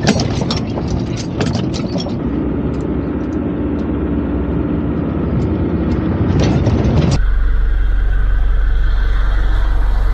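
Off-road 4x4 driving down a rocky gravel track, its engine running under tyre noise, with many sharp clicks and rattles of stones. About seven seconds in, the sound cuts abruptly to a steady, even hum.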